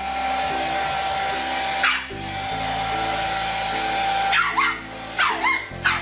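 Background music, with a dog giving short, high yelps that sweep in pitch: one about two seconds in, and a quick run of four or five near the end.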